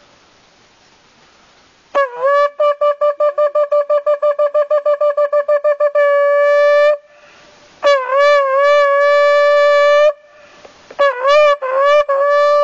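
Shofar (ram's horn) sounding a sequence of calls, starting about two seconds in: a fast run of short staccato blasts, about five a second, running into a long held note, then a second long note that dips in pitch as it starts, then a few short blasts leading into a final long note near the end.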